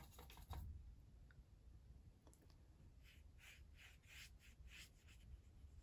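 Faint brushing of a wet watercolor brush stroked across paper, a run of about seven short strokes some three seconds in, roughly three a second.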